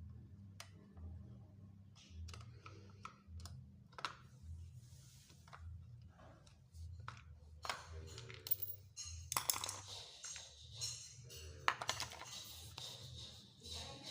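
Irregular clicks, taps and rattles of small hard parts being handled, likely the brush cutter's air filter cover and filter being taken off and worked on. The clicks are denser and louder in the second half, over a low pulsing hum.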